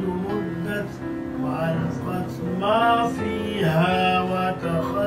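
Background music: a man singing a slow melody over held instrumental notes.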